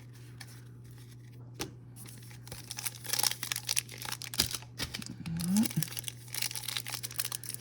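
Crinkling and rustling of a trading-card pack's wrapper and cards being handled, starting about two and a half seconds in and going on irregularly, over a faint steady low hum.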